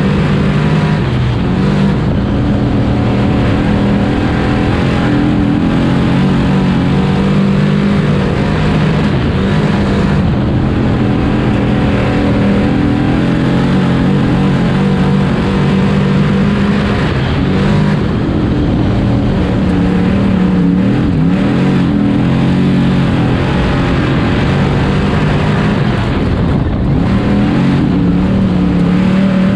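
Sportsman modified dirt race car's V8 engine running hard at speed, heard from inside the open cockpit. Its pitch falls off and climbs again several times as the throttle is lifted for the corners and reapplied down the straights.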